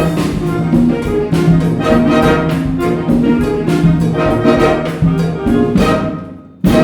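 Wind band playing a Cuban-style piece, with brass to the fore in full, accented chords. The music drops away briefly near the end, then comes back in with a loud hit.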